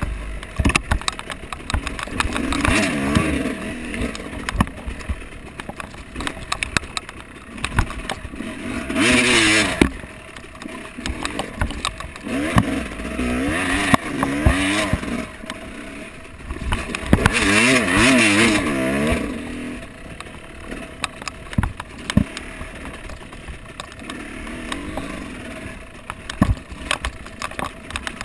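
Off-road vehicle engine revving up and dropping back in repeated surges, about five or six times, over many sharp knocks and rattles from the ride over rough ground.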